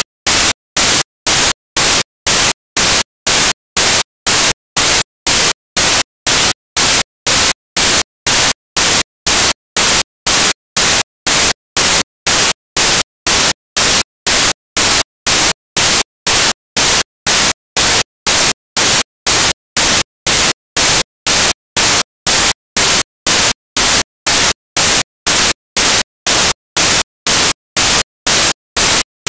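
Loud bursts of white-noise static pulsing on and off about twice a second, with dead silence between bursts: a fault in the dashcam's audio recording rather than any traffic sound.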